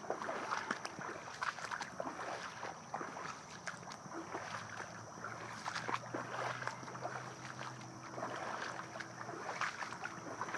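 Flooded-yard ambience: a steady wash of water noise with scattered small ticks and drips. A low steady hum comes in about halfway through and fades near the end.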